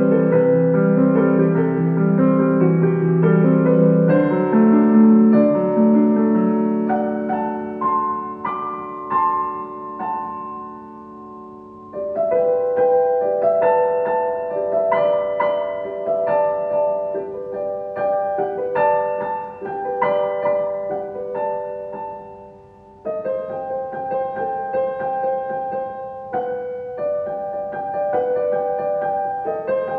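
Solo piano playing an impulsive composition: held notes and chords that ring and slowly fade. New chords are struck about twelve seconds in and again about twenty-three seconds in, after the sound has died down.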